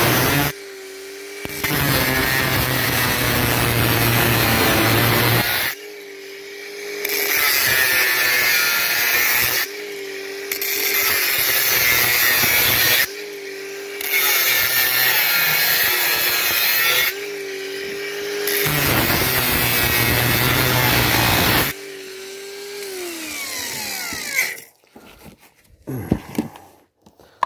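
Parkside angle grinder cutting metal on a vacuum-cleaner motor in about six passes, a loud grinding each time, with the disc whining freely in the short gaps between cuts. Near the end it is switched off and winds down with a falling whine, then a few clatters of metal being handled.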